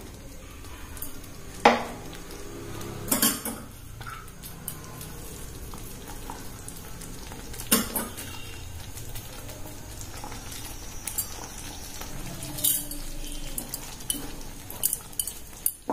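Wooden spatula stirring thick potato kurma in a nonstick pan, with a few sharp knocks and scrapes against the pan, several of them close together near the end.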